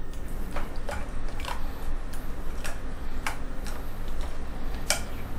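Metal spoon clicking and scraping against a ceramic plate while stirring a thick, wet sauce, in irregular strokes about every half second to second, the loudest near the end. A steady low hum runs underneath.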